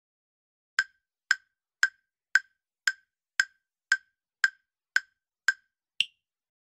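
Countdown timer sound effect: eleven short, crisp ticks about two a second, the last one higher-pitched as the count reaches zero.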